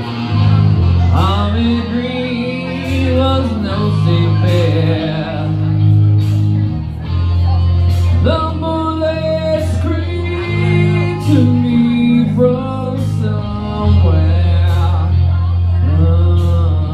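Man singing karaoke into a microphone through the PA over a recorded backing track, his sung line held and bending in pitch over sustained low bass notes.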